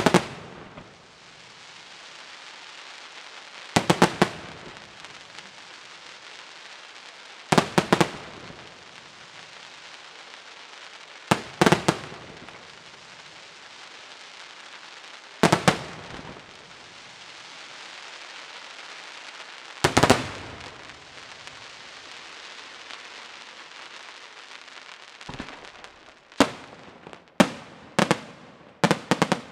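Aerial firework shells bursting in clusters of sharp bangs about every four seconds, with a steady hiss and crackle of burning stars between them. Near the end the bangs come singly and faster, about one a second.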